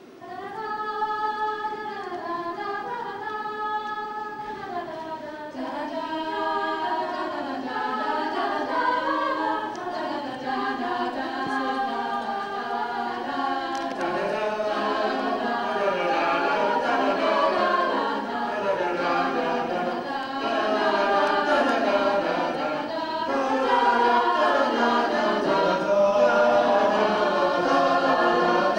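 Mixed school choir singing in several parts, holding sustained chords that grow gradually louder toward the end.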